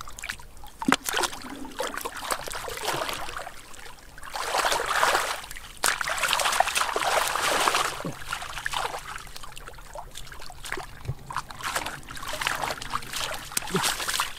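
Splashing and sloshing of shallow muddy water as a man crawls through it and grabs at fish by hand. The splashing is loudest from about four to eight seconds in and again near the end.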